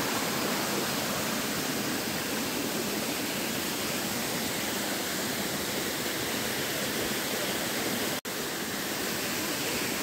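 Steady rush of a small waterfall cascading over rocks. The sound cuts out for an instant about eight seconds in.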